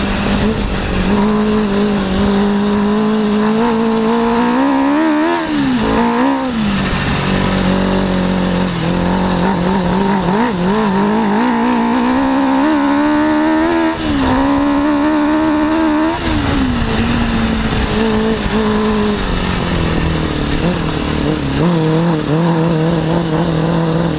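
Suzuki RF600 motorcycle engine, an inline-four, powering an off-road buggy under load. Its revs climb and drop twice as the throttle is worked, with a longer high-rev stretch in the middle, and between the climbs it holds a steadier note.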